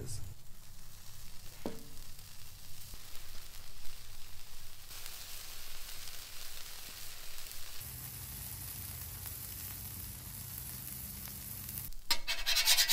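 Tortillas and cheese sizzling softly on a hot steel flat-top griddle, heated to about 400 degrees. Near the end a metal spatula scrapes across the griddle surface as it slides under the quesadillas.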